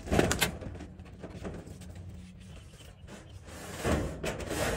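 Corrugated galvanized steel roof sheets rattling and flexing under a person's weight as he shifts and climbs across them, with two louder spells: one just after the start and one about four seconds in.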